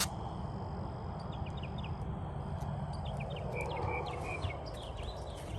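A bird chirping in quick runs of short, high, sliding notes over a steady low rumble, with a sharp click at the very start.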